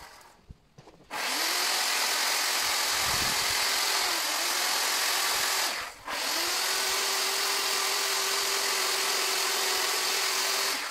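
Chainsaw running at high speed while carving a wooden sculpture. It cuts out right at the start and restarts about a second in, sags in pitch briefly around four seconds in, cuts out and restarts again about six seconds in, and stops near the end.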